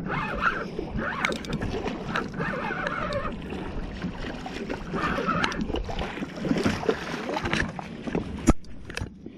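Water washing against the rocks of a jetty, with scattered clicks and knocks from movement over the rocks; the sharpest knock comes near the end.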